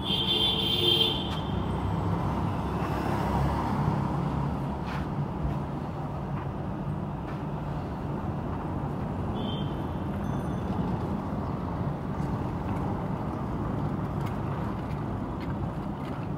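Steady road traffic noise, a low rumble of vehicles with no single event standing out, with a brief high-pitched tone right at the start and another about ten seconds in.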